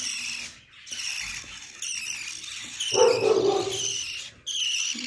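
Small pet birds chirping continuously in quick, high, repeated calls. About three seconds in, a single louder, lower sound cuts across them.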